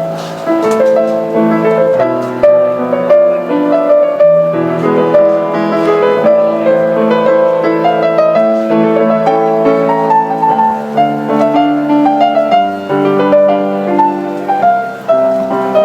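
A grand piano being played: a melody of overlapping notes over sustained chords, without a break.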